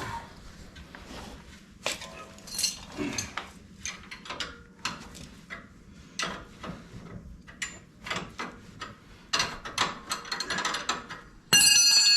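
Hand ratchet wrench clicking in short, irregular runs while steering linkage parts are worked on. Near the end there is a loud, sharp metallic hit that rings.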